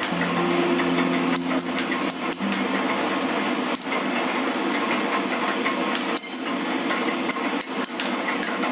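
Hand hammer striking a steel knife blade on an anvil in irregular metallic blows, some in quick pairs, one ringing on about six seconds in.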